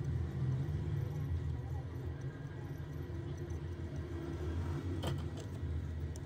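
A steady low rumble, with a faint click about five seconds in.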